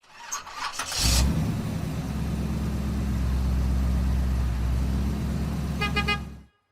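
An engine starts with a sudden burst about a second in, then runs steadily with a low hum; a short pitched tone sounds near the end before the sound cuts off abruptly.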